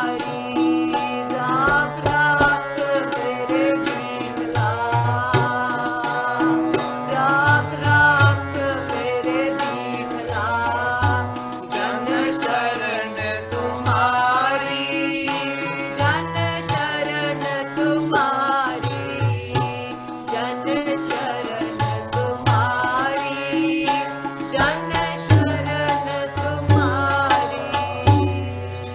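Sikh kirtan: a voice singing a devotional hymn, accompanied by tabla and a regular beat of sharp, high percussion strokes, heard through a Zoom video call.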